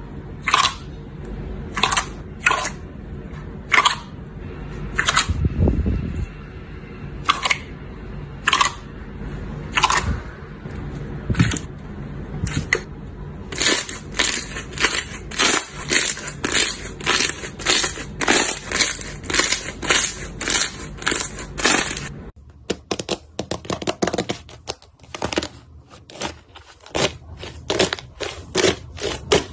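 Slime being squeezed and pressed by hand, giving sharp crackling pops, about one a second at first and then several a second. About two-thirds of the way through the sound changes to quicker, softer clicks.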